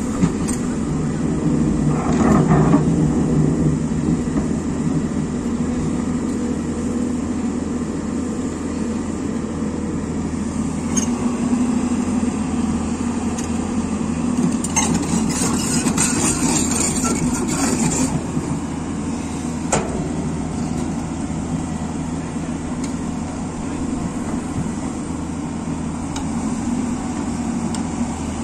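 Hyundai crawler excavator's diesel engine running steadily under hydraulic load as the machine digs, swelling louder in the first few seconds. A rushing noise lasts about three seconds in the middle, with a single sharp click soon after.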